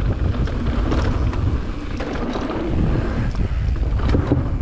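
Wind rushing over the action-camera microphone during a fast mountain-bike descent, with the tyres rolling over the dirt trail and small rattles and clicks from the bike.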